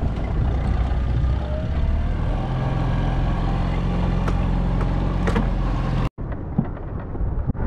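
Boat outboard motor running steadily under way, with wind and water noise over it; the engine note shifts a little over two seconds in. The sound drops out briefly about six seconds in and comes back quieter.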